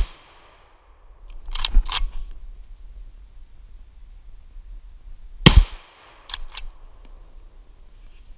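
Hunting rifle fired twice, about five and a half seconds apart, each shot loud and sharp with an echo trailing off through the woods. After each shot come two quick metallic clacks of the action being cycled to chamber the next round.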